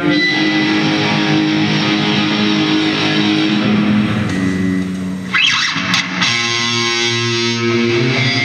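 Electric guitar played through an amplifier, with held notes and chords ringing out. About five seconds in the notes change, with a brief noisy upward sweep.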